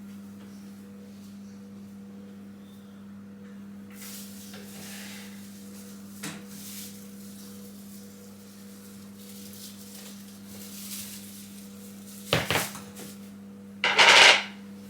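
A steady low hum with faint rubbing and swishing, then two loud, short clatters of hard objects being handled near the end, the second the loudest.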